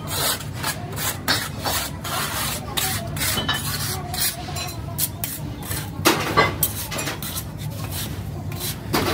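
Steel moulding flasks and a sand core being handled by hand: repeated short scrapes, rubs and knocks of metal on sand and metal, the loudest about six seconds in, over a steady low hum.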